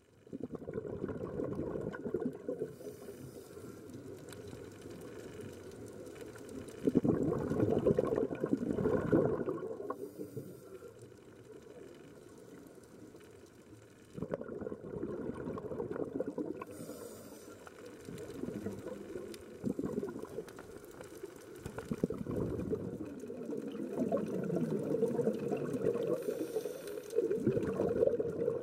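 Scuba divers' exhaled regulator bubbles heard underwater through a camera housing: bubbling, gurgling noise that swells in surges a few seconds long, with brief faint hissing between them from the regulators' inhalations.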